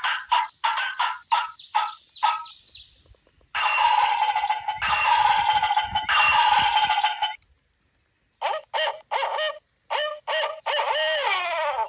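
Turkey gobbling and calling: runs of quick repeated notes, a long rattling gobble in the middle, and a falling note near the end.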